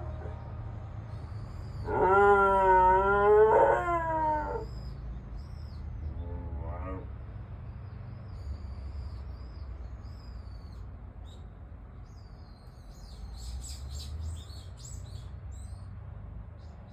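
Akita dog howling: one long wavering howl of about two and a half seconds, then a short faint howl a couple of seconds later.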